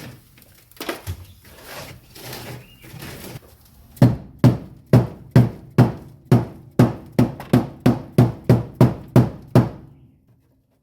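A rubber mallet beating on frozen factory sound deadening stuck to a car's steel floorpan, to crack it loose. It strikes about fifteen quick, evenly spaced thuds, a little over two a second, after a few seconds of lighter scraping and knocking.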